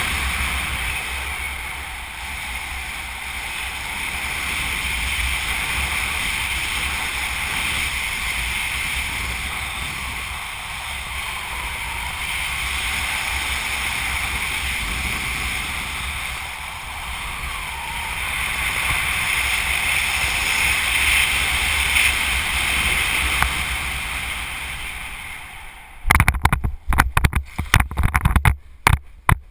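Wind rushing over the microphone during a parachute descent under an open canopy: a steady hiss with a low rumble. Near the end it breaks into loud, choppy, irregular buffeting and knocks as the skydiver touches down and the canopy collapses.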